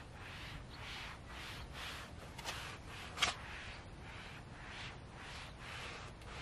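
Microfiber towel rubbing across a car's painted door panel in repeated wiping strokes, about two a second. A single sharp click about three seconds in.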